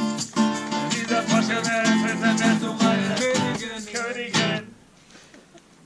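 Acoustic guitar strummed in a steady rhythm of chords, ending on a last strong strum about four and a half seconds in.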